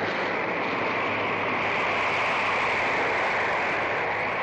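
Storm wind sound effect: a steady rushing noise that swells a little in the middle and eases again.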